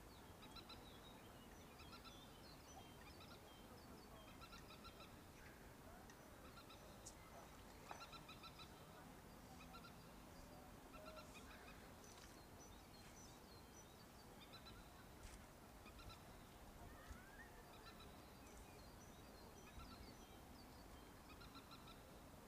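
Faint, rapidly pulsed animal calls in short groups, recurring every second or two.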